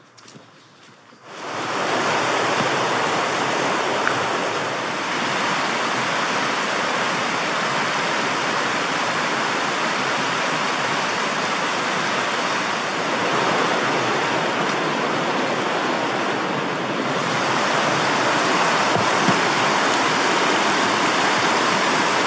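Steady rushing of a fast-flowing river running over rocks as white water, starting abruptly about a second and a half in.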